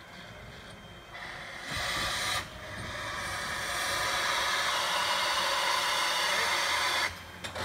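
Steam hissing from a narrow-gauge steam locomotive. A short burst comes about a second in, then a long steady hiss from about two and a half seconds in that cuts off suddenly near the end.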